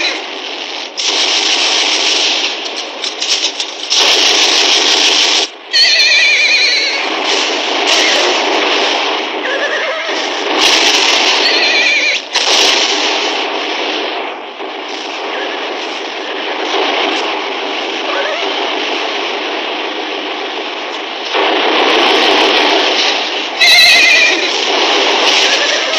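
Battle sound from an old film soundtrack: horses neighing loudly several times, about six seconds in, around twelve seconds and near the end, over a continuous din broken by sudden explosion blasts.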